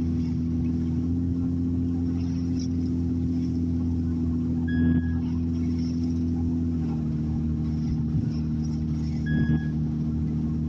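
Car being driven, heard from inside the cabin: a steady engine and road hum whose pitch drops a little about seven seconds in. A short high beep sounds twice, about five and nine seconds in.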